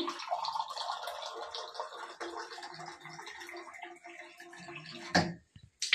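Water running from a Vestige Sharp water purifier's dispensing tap into a drinking glass, a steady pouring stream. It stops about five seconds in, followed by a knock.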